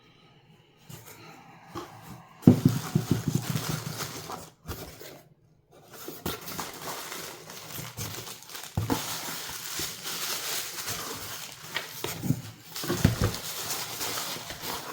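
Packing material crinkling and rustling as hands unwrap a stone from a box of rocks, with a few knocks and thumps of handling.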